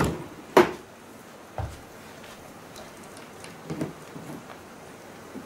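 Knocks and clatter from handling a 16mm film projector's carrying case as it is set down and opened: a sharp knock about half a second in, a duller one about a second later, and a short clatter near four seconds, over a steady hiss.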